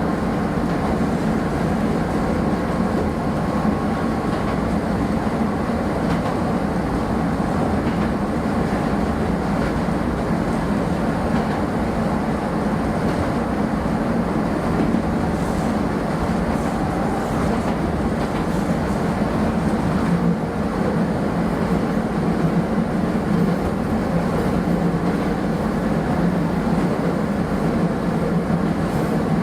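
Kobe Electric Railway train running along the track, a steady rumble of motors and wheels on rail.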